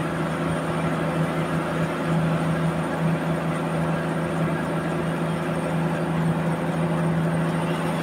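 Band sawmill running, a steady motor drone with machine noise that does not change.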